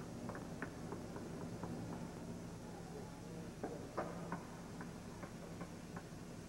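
Scattered light knocks and clicks of someone climbing on a wooden set structure, over a steady low hum.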